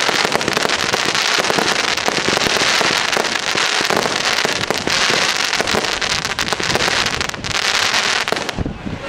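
Consumer fireworks cakes firing: a dense, continuous crackle of many small pops from bursting crackling-star effects. The crackle thins out shortly before the end.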